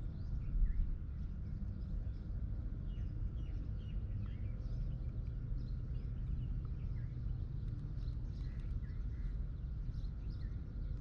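Outdoor ambience: a steady low rumble with many short, high bird chirps scattered throughout.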